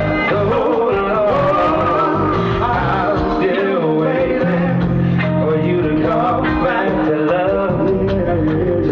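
Live band music with a man singing into a microphone, over drums and steady instrumental backing.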